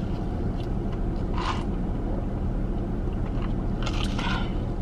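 Steady low hum inside a parked car, typical of the car's engine idling, with two brief soft noises, about a second and a half in and again near the end.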